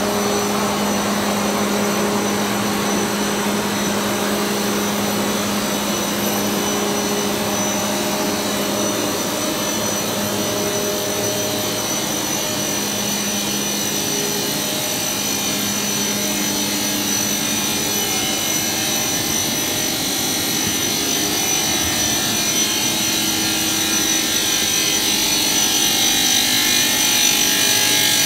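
WPC foam board co-extrusion line running: a steady machine drone with a high whine throughout and a low hum in the first part, growing somewhat louder near the end.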